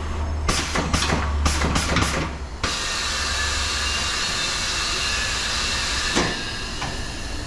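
Automatic tyre changer at work on a wheel and tyre: a motor hum with a series of clicks and clacks from the bead tool and turntable, then a steady hiss of compressed air from about two and a half seconds in, with a single knock near the end.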